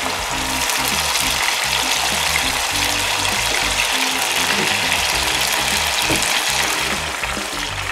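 Diced chicken breast sizzling steadily in hot sunflower oil in a frying pan, with background music playing underneath.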